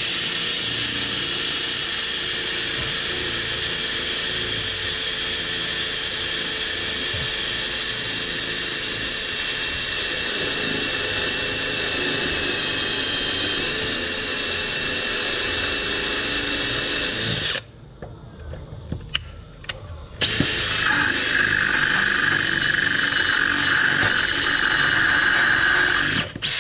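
Makita 18V cordless drill running steadily under load as it drills out a broken bolt in a lawn mower blade spindle. It stops for about two and a half seconds, a little over halfway through, then runs again.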